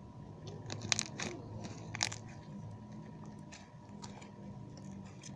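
Clear slime being stretched and squeezed in the hands, crackling and popping as trapped air bubbles break: a cluster of sharp crackles about a second in, another about two seconds in, then fainter ticks.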